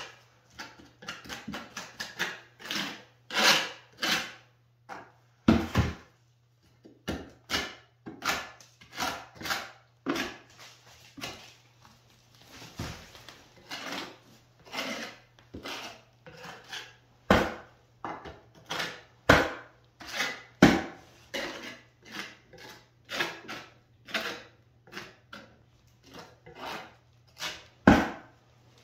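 Small steel trowel scraping gypsum base-coat plaster over and into wooden lath in short, irregular strokes, about one or two a second. This is the scratch coat being pressed tight into the lath and left rough so the brown coat has something to grab onto.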